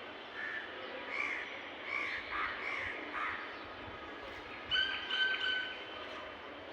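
Crows cawing: several short calls over the first three seconds, then two louder, longer caws about five seconds in.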